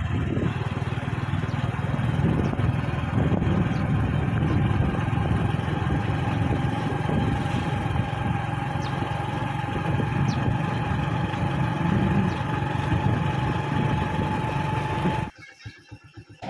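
Motorcycle engine running steadily while riding along a rough rural track, with road and wind noise and a thin steady whine in the second half. The noise cuts off abruptly about fifteen seconds in.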